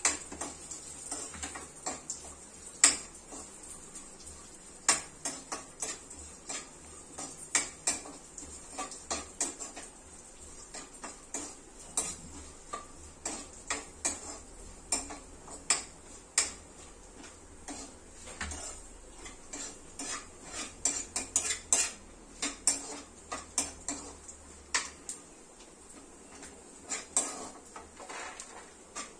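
Steel spatula scraping and clinking against a kadhai while stirring cashew and almond pieces roasting in ghee. The clicks come irregularly, several a second, some much louder than others.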